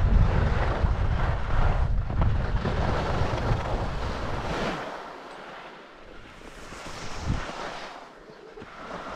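Wind buffeting an action camera's microphone during a downhill ski run, with the hiss of skis sliding over snow. The heavy wind rumble fades about halfway through, leaving mostly the ski hiss, and builds again near the end.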